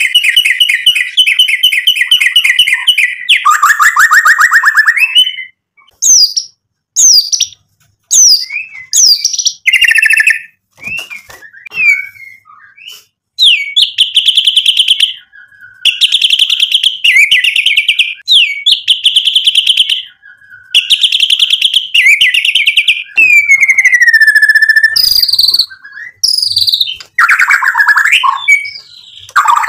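White-rumped shama (murai batu) singing a loud, varied song from its learned repertoire: long rapid trills, short rising and falling whistles, and a run of four alike trill phrases of about a second each midway, followed by a falling whistle.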